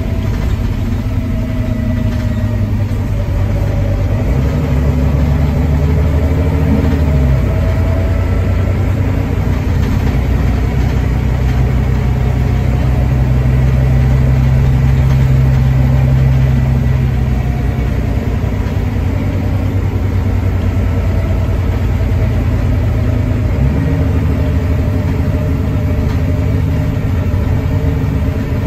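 Volvo D9B 9.3-litre straight-six diesel of a Volvo B9TL double-decker bus, heard from the upper deck, driving through a ZF Ecolife six-speed automatic. The engine note steps up and down a few times, then is loudest for several seconds near the middle as the bus climbs a hill under load, and eases off after.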